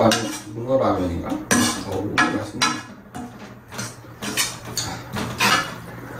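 A metal ladle and chopsticks clinking and scraping against a cooking pot and bowls in a string of short, irregular clicks as ramen noodles are served and eaten. A voice is heard briefly at the start.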